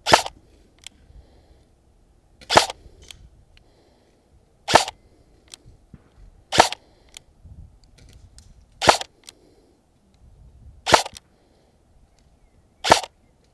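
Arcturus AK-12 airsoft electric rifle firing single shots, seven in all, about one every two seconds, each a short sharp crack.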